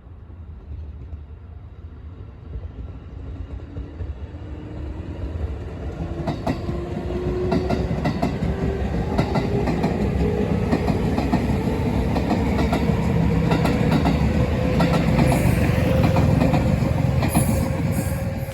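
Electric train accelerating, its traction motors giving a whine that rises steadily in pitch while the wheels clack over rail joints. It grows louder throughout and cuts off suddenly at the end.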